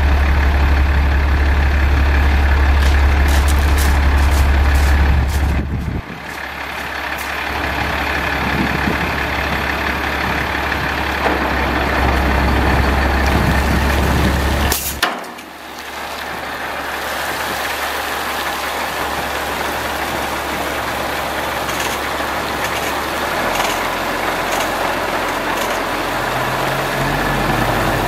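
Caterpillar C7 diesel engine of a 2006 Chevy C7500 water truck idling, with a steady low hum.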